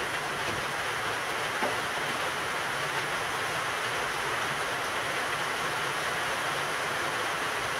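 Steady rushing noise that holds even throughout, with no rhythm or pitch.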